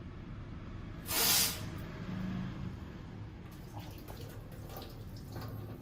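One short, sharp rush of breath about a second in, from a person practising sutra neti (cleansing the nasal passage with a sutra drawn through the nose); faint background hiss otherwise.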